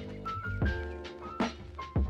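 Background music with a steady drum beat over held chords, and a short high melody line in the middle.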